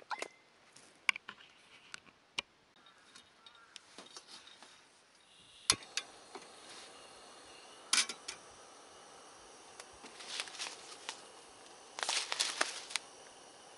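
Scattered light clicks and taps of small hard objects being handled, with a short run of clattering about twelve seconds in.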